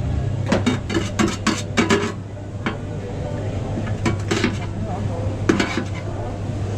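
Metal utensils and dishes clattering at a hawker food stall, in several quick bursts of knocks and clinks, over a steady low hum.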